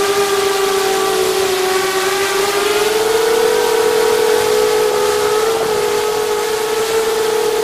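Electric motors and propellers of a multirotor FPV drone in flight, heard from a camera mounted on the drone: a loud, steady whine that dips slightly in pitch and comes back up as the throttle changes, over a hiss of rushing air.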